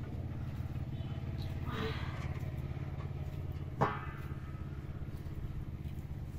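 An engine running steadily with a low, evenly pulsing rumble, and a single sharp click about four seconds in.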